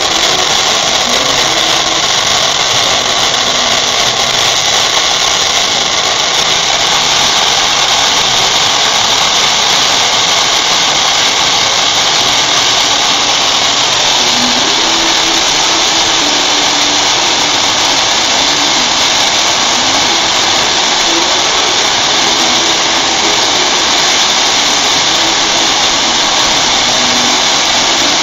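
Two ground fountain fireworks spraying sparks at once, giving a loud, steady hiss.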